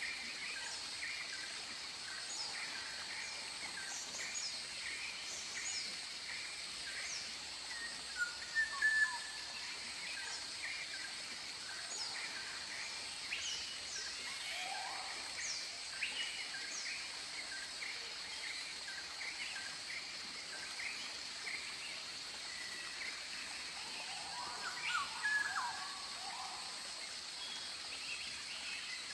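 Tropical forest ambience: several birds chirping and whistling in repeated calls over a steady high-pitched insect drone. A few louder calls stand out about eight seconds in and again near twenty-five seconds.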